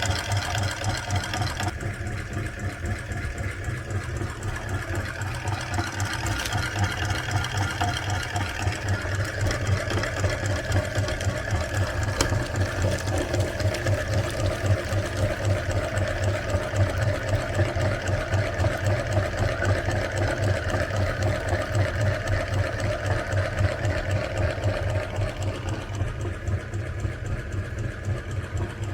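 Meat grinder motor running steadily, a low hum with a fast, even rattle, as it grinds ice cream.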